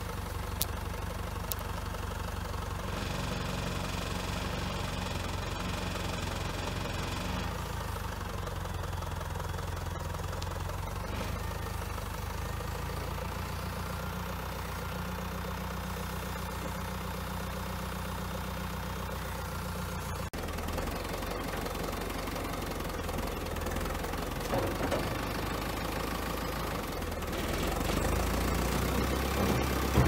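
Lännen C110 backhoe loader's diesel engine running steadily while the backhoe arm works. A higher whine joins for a few seconds near the start, and the engine grows louder near the end as the machine drives off.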